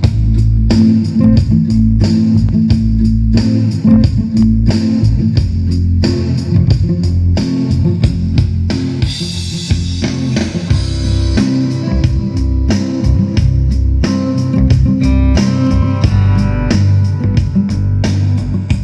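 Rock music with electric guitar, bass guitar and a drum kit on a steady beat, played loud through a pair of speakers driven by the Fosi Audio BT20A Pro amplifier.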